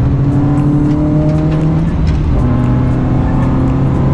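Car engine under hard acceleration, heard from inside the cabin: a steady engine note climbing in pitch, cut briefly about two seconds in by an upshift, then climbing again from a lower pitch, over road and wind noise.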